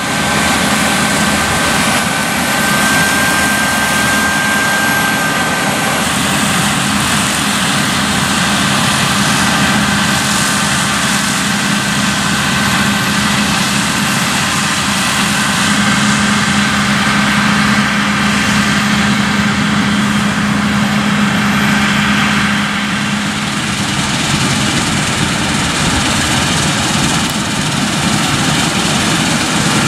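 Claas Lexion 7500 Terra Trac combine harvester running under load while threshing soybeans, its engine and threshing machinery making a steady drone with a constant high whine above it.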